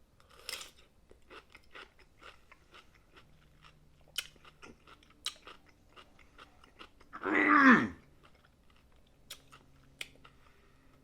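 Close-up crunchy chewing of a pickle dipped in butter sauce, a run of small wet crunches and clicks. About seven seconds in, a short voiced hum of falling pitch.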